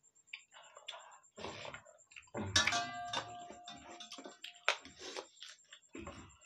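Hands mixing and eating rice from stainless-steel plates, with small scrapes and eating sounds. About two and a half seconds in, a steel utensil clinks and rings for about two seconds.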